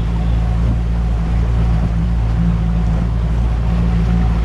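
Outboard motor on a small aluminium dinghy running steadily under way, a constant low drone heard from inside the boat.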